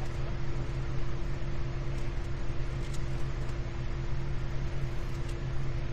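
Steady low mechanical hum with a constant tone held over it.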